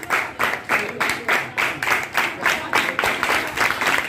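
A small group of people clapping in a steady, even rhythm, about four claps a second.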